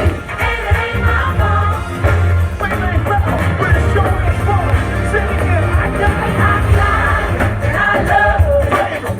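Live gospel music: a singer singing over a band with a heavy, steady bass.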